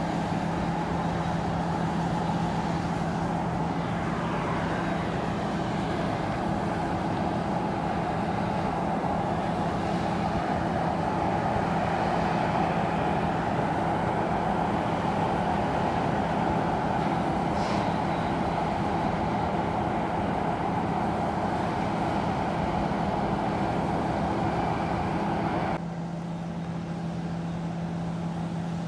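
A steady outdoor rumble with a constant low hum underneath. Near the end the rumble drops and thins, while the hum carries on.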